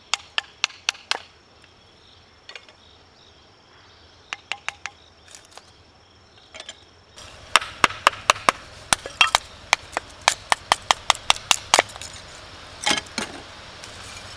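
Hatchet chopping firewood into kindling: sharp wooden chops in short runs. From about halfway in comes a fast run of about four chops a second.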